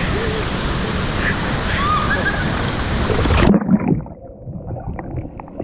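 Waterfall's rushing water filling the pool, with voices calling out over it. About three and a half seconds in, the microphone goes underwater and the sound turns abruptly muffled and dull, with bubbling and knocks.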